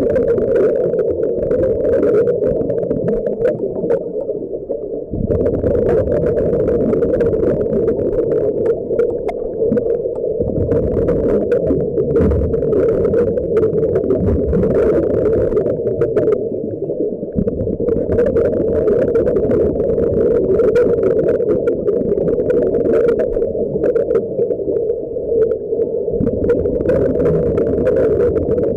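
Underwater sound picked up through a camera housing: a steady muffled hum, broken every five or six seconds by a gurgling, hissing rush of scuba regulator exhaust bubbles as a diver breathes out.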